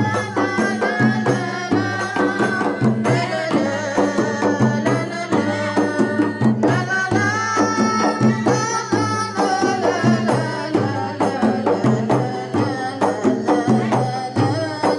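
Rebana ensemble: many hand-struck frame drums beating a quick, steady rhythm under a sung melody.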